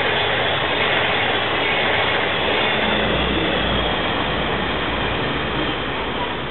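The tail of a sleeper train of passenger coaches rushing past on snowy track and moving away: a steady rolling rush with some low rumble, easing off a little near the end.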